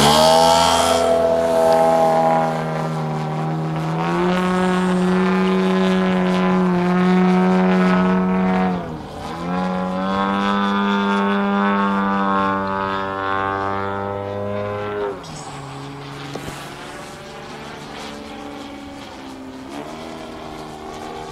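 Gasoline engine of a radio-controlled aerobatic airplane in flight, a steady pitched drone. About nine seconds in the note dips briefly in pitch and level and then comes back up. From about fifteen seconds it drops to a lower pitch and runs on more quietly.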